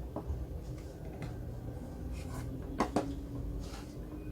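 Light clicks and taps from handling the opened iPod and small tools on a work surface, a handful of separate ticks with two close together about three seconds in, over a low steady hum.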